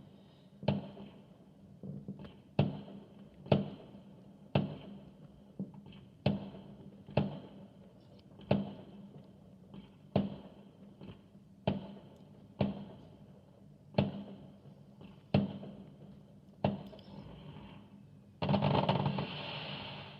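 A regular series of sharp bangs or knocks, about one a second, each dying away quickly, over a low steady hum, then a short rushing hiss near the end.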